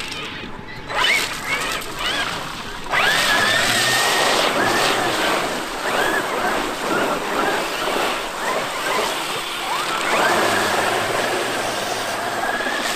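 Traxxas X-Maxx electric RC monster truck running through water: the brushless motor whines, rising and falling in pitch with the throttle, over a rush of splashing. It surges suddenly about three seconds in and again about ten seconds in.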